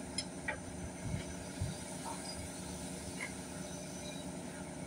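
Steady machinery hum, with a few faint, short knocks scattered through it.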